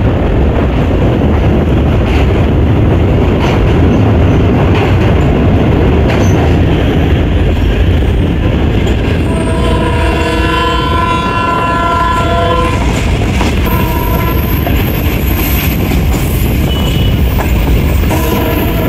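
Passenger train running, heard from a coach window: a steady low rumble of the wheels on the track. The horn sounds as a steady chord about halfway through, then fainter, and again near the end.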